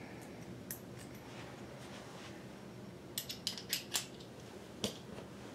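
A few small, sharp clicks and taps of screws and a hand tool being handled against the plastic casing of a Pfaff Creative Vision sewing machine. There is one click early, then a quick run of about six clicks a little past halfway, then one more near the end.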